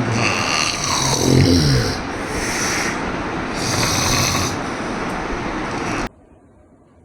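Loud snoring of a person with sleep apnea: a run of rough, rasping snores with hissing breaths between them, one every second or two. It cuts off suddenly about six seconds in.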